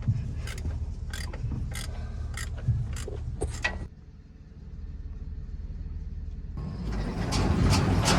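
Massey Ferguson 2270 big baler running, a steady low hum with regular sharp clicks a little under twice a second. About four seconds in the sound drops away abruptly to a quieter hum, then grows louder and fuller near the end.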